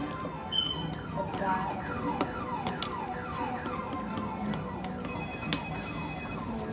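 A siren-like electronic wail: a rapid series of falling pitch sweeps, about two a second, repeating steadily.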